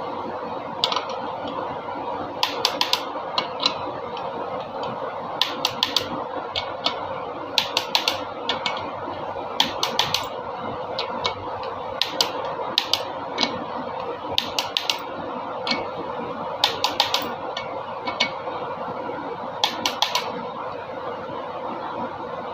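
Sharp metallic clicks from hand tools working on engine parts, coming irregularly in quick clusters of three or four, over a steady hum.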